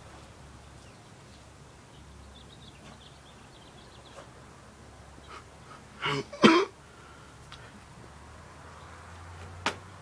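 A person coughing twice in quick succession about six seconds in, with a single sharp click near the end, over a faint low hum.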